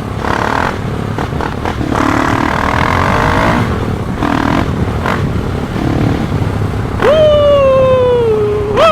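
Single-cylinder engine of a KTM 690 SMC supermoto running through an Akrapovic exhaust while riding, with a rough, clattery sound. Near the end it is revved twice, each time jumping up in pitch and then sliding slowly down as the revs fall.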